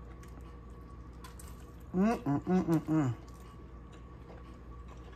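A woman's voice for about a second in the middle: a short string of four or so sounds that the recogniser did not pick up as words. Faint light clicks and rustles of handling come before it.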